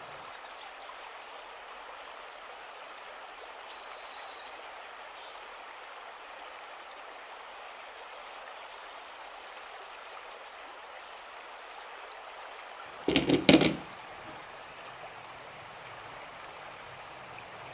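Outdoor field ambience: a steady hiss with small birds chirping high and faint, mostly in the first few seconds. About thirteen seconds in there is one brief loud sound, under a second long.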